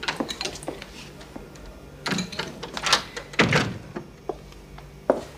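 Interior door being closed, with a loud low thud about three and a half seconds in, among several lighter knocks and clicks from the handle and footsteps.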